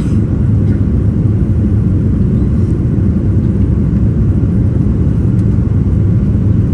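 Jet airliner's steady low rumble of engines and airflow heard in the cabin during the climb after takeoff, loud and unchanging.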